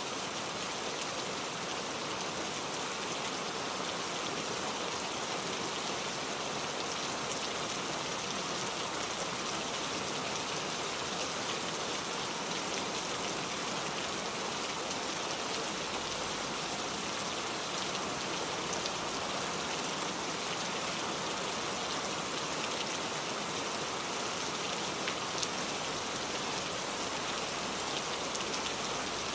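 Steady rainfall, a dense even hiss of rain with scattered drops pattering on a surface.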